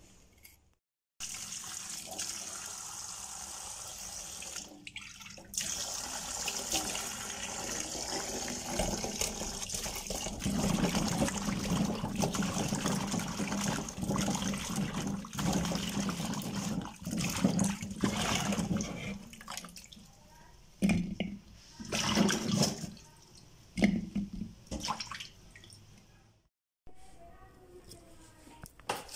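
Tap water running into a stainless steel bowl while hands rub and rinse cut moringa pod pieces, with splashing. The flow grows louder through the middle. Toward the end it breaks into separate splashes and then stops abruptly.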